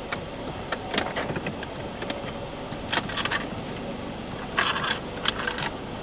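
Mercedes car moving off slowly, heard from inside the cabin as a steady hum, with several short clicks and rattles on top, the loudest about four and a half seconds in.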